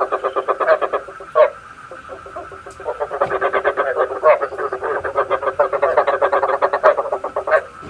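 Frogs croaking in fast runs of pulsed calls, the frog-call recording used as a lure for trapping frogs at night. The calling breaks off about a second in, with one short call in the lull, then picks up densely again at about three seconds and goes on until just before the end.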